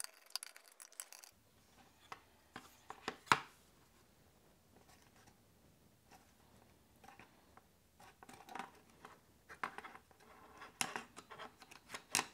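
Small screwdriver backing screws out of a circuit board, with faint scratches and light clicks as the metal screws and the board are handled. One sharper click about three seconds in, and a run of clicks near the end.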